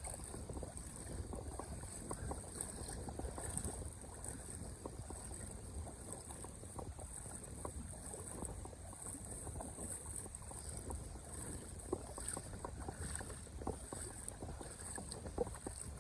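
Steady wash of moving river water, with scattered small splashes and ticks.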